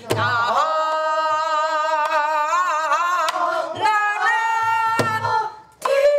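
A solo voice singing in Korean traditional pansori style, holding long notes that shake and bend in pitch, with a couple of sharp drum strokes. The song breaks off briefly near the end, then a new note starts.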